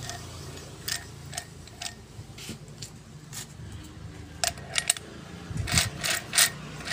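Steel differential gears of a Mitsubishi Colt Diesel truck axle clinking and tapping as they are set by hand into the differential case: scattered light metallic clicks, coming louder and closer together in the last two and a half seconds.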